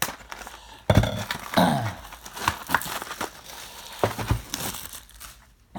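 Plastic wrapping and cardboard of a sealed baseball-card hobby box crinkling, tearing and rustling as the box is opened, in uneven handling noises with a few sharper crackles.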